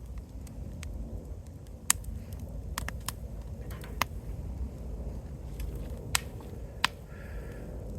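Wood fire crackling, with half a dozen sharp, irregularly spaced pops over a steady low rumble.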